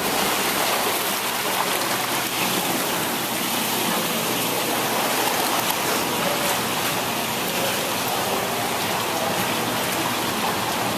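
Splashing water in a swimming pool: a person jumps in at the start, then a steady hiss of churning, splashing water from people moving in the pool.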